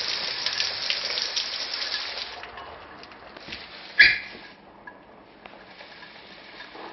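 Hard rain falling, a dense hiss of drops that eases off after about two seconds. About four seconds in there is a single sharp metallic clank with a short ring.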